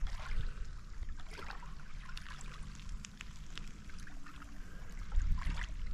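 Small waves lapping at the water's edge, with scattered little splashes and ticks. A low rumble grows louder near the end.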